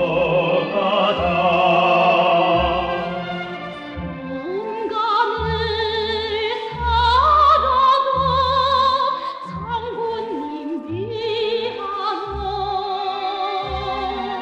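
Operatic singing with strong vibrato over orchestral accompaniment, with a steady pulsing bass line.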